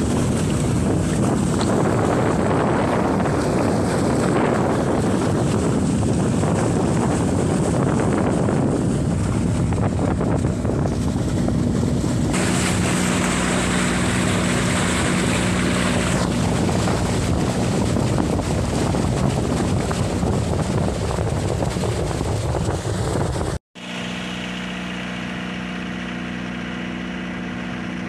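Water rushing and splashing against the hull of a moving boat, with wind on the microphone, over the steady drone of the boat's Mitsubishi 4DR5 four-cylinder diesel engine. Near the end the sound drops out for an instant, then carries on quieter, with the engine's steady hum plainer and less water noise.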